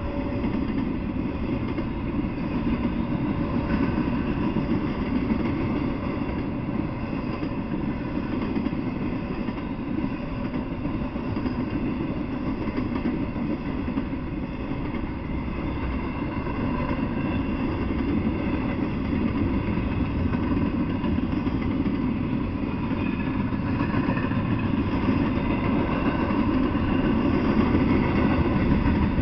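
Double-stack intermodal freight train rolling past, its wheels on the rails making a steady, mostly low rumble.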